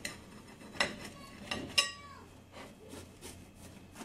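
A knife clinking against a glass cake plate while a cake is cut: three sharp clinks in the first two seconds, the last and loudest followed by a brief ringing tone.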